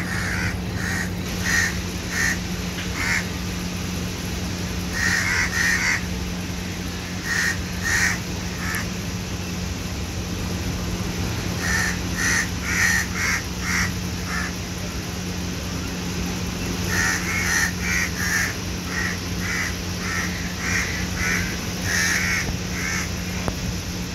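An animal calling in short, repeated harsh notes, in runs of a few calls every few seconds, over a steady low hum.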